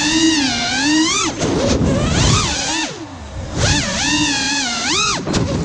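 FPV quadcopter's brushless motors whining, the pitch swooping up and down with the throttle and dropping away briefly about three seconds in.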